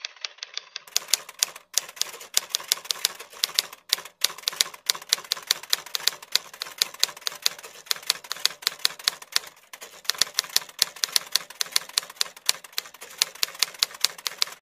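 Typewriter sound effect: a fast run of keystroke clicks, several a second, with a couple of short pauses, stopping just before the end.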